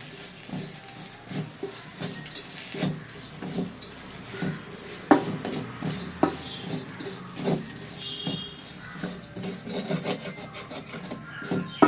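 Spoon stirring and scraping bitter gourd and onion-spice masala around a frying pan as they are sautéed together, in repeated irregular strokes with a sharper knock about five seconds in.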